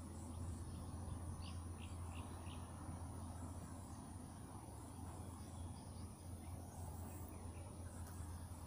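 Outdoor ambience of insects trilling steadily at a high pitch, with a few short bird chirps about a second and a half to two and a half seconds in, over a steady low hum.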